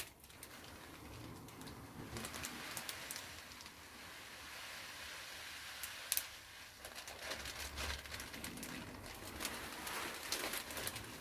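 Loose polystyrene beads rustling and pattering as they are poured into a leather cushion cover, a fine hissy rattle with many small clicks.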